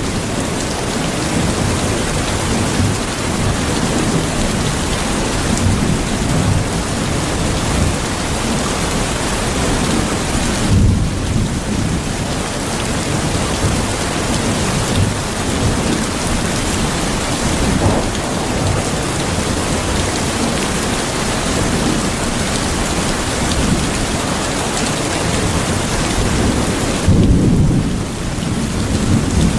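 Steady heavy rain with low rumbles of thunder. The thunder swells about eleven seconds in and again near the end.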